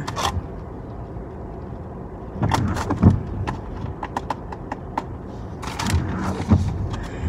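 A fast-food takeout bag being rummaged through, with the containers inside knocking and rustling in two short bursts, about two and a half seconds in and again about six seconds in.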